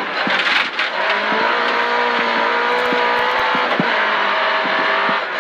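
Volvo 940 Group H rally car heard from inside the cabin at speed on a gravel road: the engine runs hard with its note held fairly steady from about a second in until near four seconds, over constant gravel road noise and scattered stone clicks.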